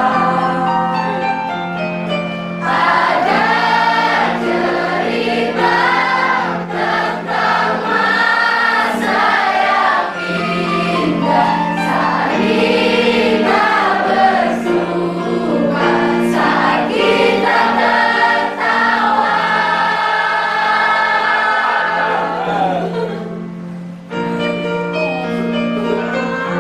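A group of voices singing a song together in chorus over steady instrumental accompaniment, with a short break in the singing near the end.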